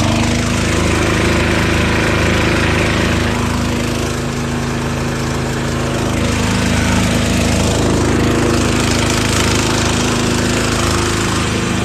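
Small gasoline portable generator engine running steadily at a constant speed.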